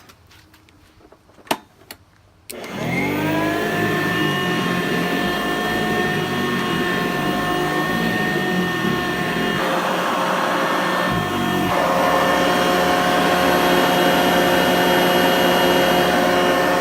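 A vacuum cleaner motor switched on after a few sharp clicks, whining up to speed and then running steadily. Its tone shifts briefly around ten to twelve seconds in.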